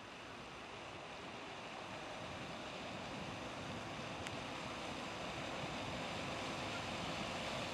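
Steady rushing and splashing of water pouring from the discharge openings in a tanker ship's hull, growing louder as the ship draws near.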